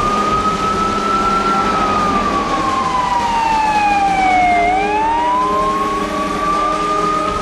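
Fire truck siren on a slow wail: it rises for about a second and a half, falls over about three seconds, then climbs again. A steady low hum runs underneath.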